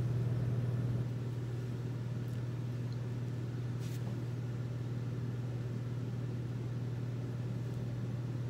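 Steady low hum of room machinery, dropping slightly in level about a second in, with a faint brief rustle about four seconds in.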